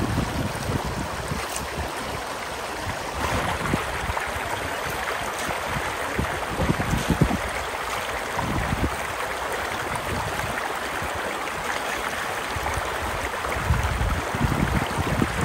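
Shallow river rushing steadily over stones, with a few brief low thumps, more of them near the end.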